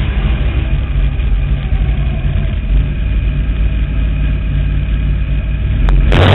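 305 sprint car's V8 engine running steadily, heard from inside the open cockpit as the car circles a dirt oval. A short burst of harsh noise comes right at the end.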